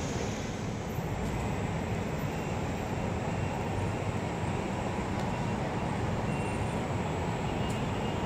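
Steady low rumble of city traffic, an even hum with no distinct events.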